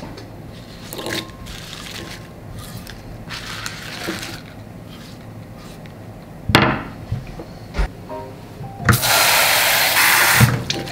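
Kitchen tap water running into a glass bowl of cut spinach for about a second and a half near the end. Before it come the soft rustle of leaves being handled and a single sharp knock.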